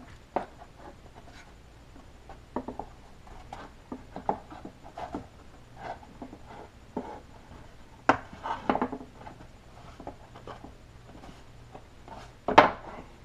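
Scattered light clicks, taps and rubbing as hands handle balsa wood parts and tools on a workbench, with a sharp knock near the end.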